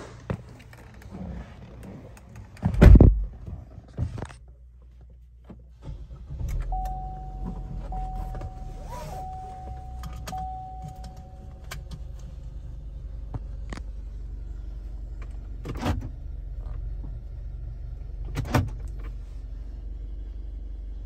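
2020 Chevrolet Trax's 1.4-litre turbocharged four-cylinder engine starting about six seconds in, then idling steadily, with a steady high tone for several seconds after it catches. Before the start there are key jangles and a loud knock; two sharp clicks come later.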